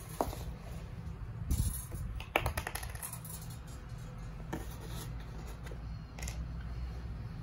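Scattered light clicks and knocks as a decorative metal wall clock is handled and turned over, with a quick cluster of clicks about two seconds in and single taps later on.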